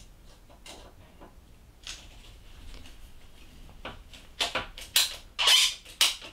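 Ratcheting PVC pipe cutter clicking as its handles are squeezed down through a PVC pipe. There are a couple of faint clicks at first, then a run of louder, sharp clicks from about four seconds in.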